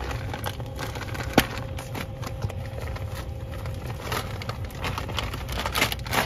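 Packaging being handled and torn open: irregular crackling, rustling and clicking, with one sharp click about one and a half seconds in, over a low steady hum.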